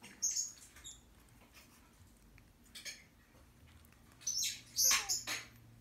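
Xoloitzcuintli puppies giving short, high-pitched squeaks as they play-wrestle: one early, one near the middle, and a cluster of three near the end.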